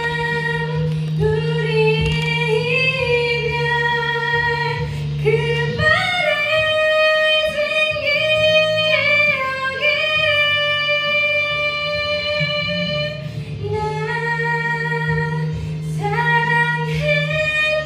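A woman belting a song into a handheld microphone, holding long notes and stepping up to a higher sustained note about six seconds in.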